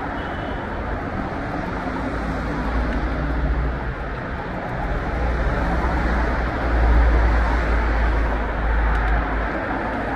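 City street traffic: a steady rumble of passing cars, swelling about seven seconds in as a vehicle goes by close.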